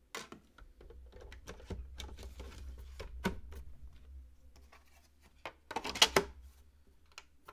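Plastic hard-drive tray, loaded with a 3.5-inch WD Red Plus drive, sliding into a bay of a QNAP TS-464 NAS with a run of clicks and rattles over a low rumble. About six seconds in comes the loudest clatter, as the front cover is fitted on the enclosure, and there is one more click near the end.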